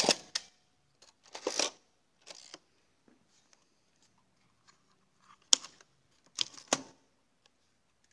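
Mechanical clicks and clacks from a Mamiya RZ67 medium format film camera being worked by hand. A sharp click comes at the start, then a longer clatter about a second and a half in and a smaller one just after. Another sharp click comes about five and a half seconds in, and two more follow a second later.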